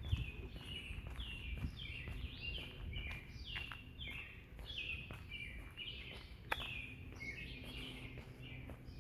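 Small songbirds chirping, a quick continuous run of short high notes, over a low steady rumble of background noise. A sharp tap sounds just after the start and another about two-thirds of the way through.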